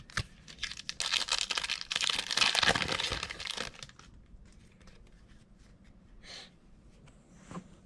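A Panini Prizm Draft Picks trading-card pack being torn open, its wrapper crinkling loudly for a few seconds about a second in, then only faint rustling and small clicks as the cards are handled.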